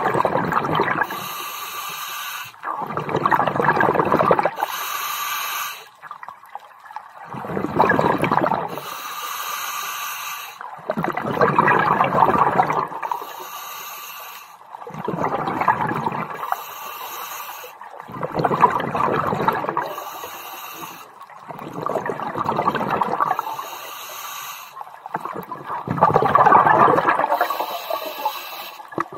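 Scuba diver breathing through a regulator underwater, heard through a camera dive housing. Bubbling rushes of exhaled air come about every three to four seconds, with a thinner hiss between them.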